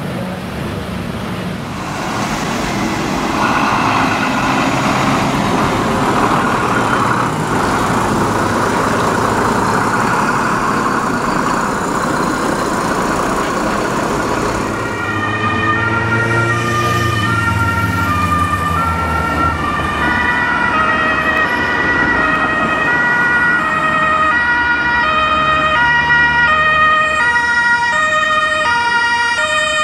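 Emergency vehicles on a run: truck engine and road noise, then from about halfway German two-tone sirens (Martinshorn) switching steadily between a high and a low note, with more than one siren sounding together near the end.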